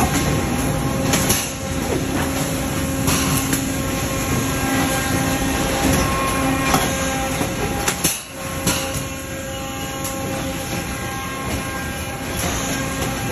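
Roll-fed plastic thermoforming machine running: a steady industrial hum and clatter with scattered sharp clanks and knocks.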